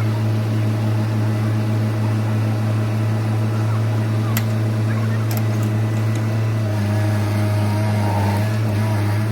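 Diesel engine of heavy land-clearing equipment (skid steer or excavator) running steadily with a low, even drone; its note shifts slightly about two-thirds of the way in.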